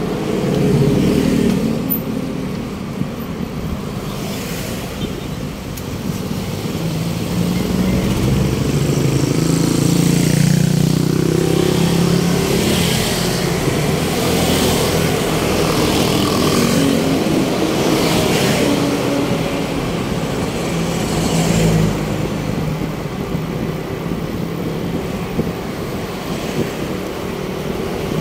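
Road traffic: motor vehicle engines running steadily, swelling louder for several seconds in the middle.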